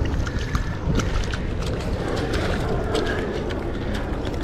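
Water sloshing and splashing in a shallow rock pool as a mesh keep net holding a fish is handled in it, with many short sharp clicks and splashes throughout, over a steady low rumble of wind on the microphone.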